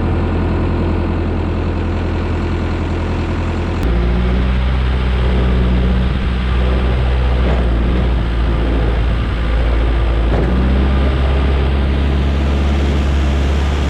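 Diesel engine of a Caterpillar backhoe loader running steadily. About four seconds in, its note shifts and gets a little louder.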